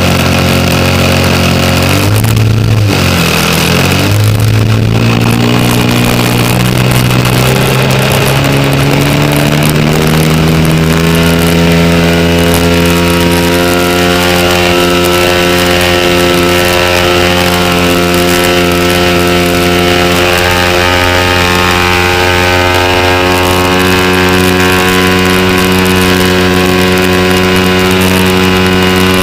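Sig Kadet Senior model airplane's engine, heard from on board, speeding up with a rising pitch over several seconds as the plane takes off, then running at a steady high speed through the climb-out.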